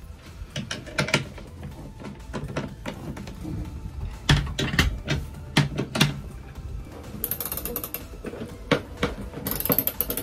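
Socket ratchet wrench clicking as a nut is tightened on a bolt, with metal knocks of the tools against the fitting. A few louder knocks come about four to six seconds in, and runs of quick ratchet clicks near the end.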